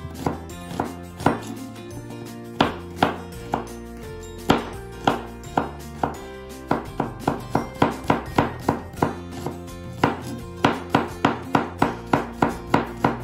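Kitchen knife chopping onion on a plastic cutting board: sharp chops, scattered at first, then quickening to about three a second in the second half, over soft background music.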